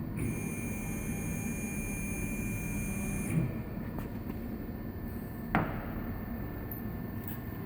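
The stepper motor drives of a wood CNC router whine steadily for about three seconds while an axis is jogged, then stop with a click. A single sharp knock follows about two seconds later.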